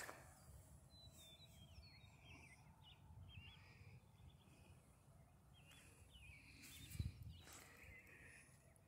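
Near silence: faint small-bird chirps come and go over a low rumble, with a single soft thump about seven seconds in.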